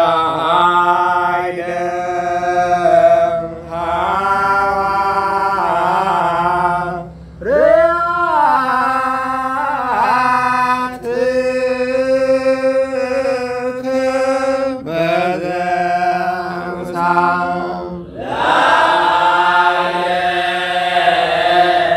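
Ethiopian Orthodox church chant: a hymn in Ge'ez sung with long held, ornamented notes and sliding pitch, broken by a few short breaths between phrases.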